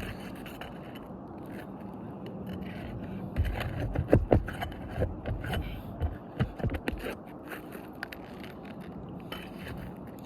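Roofing tool prying and scraping under asphalt shingles to pull the roofing nails, with a run of sharp clicks, knocks and scrapes from about three and a half to seven seconds in.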